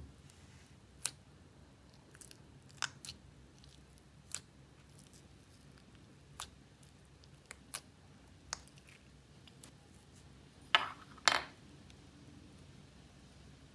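Clear slime packed with tiny micro beads being poked and squeezed in a small plastic jar, giving scattered sharp clicks and pops. Two louder pops come about half a second apart near the end, as the slime is lifted out of the jar.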